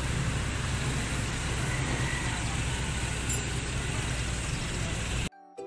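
Engine idling steadily with a low, even hum; the sound cuts off abruptly near the end.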